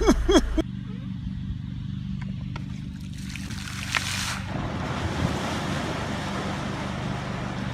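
Wind rushing on the microphone with a water-like wash, over a steady low engine hum; a louder gust of noise comes about three to four seconds in.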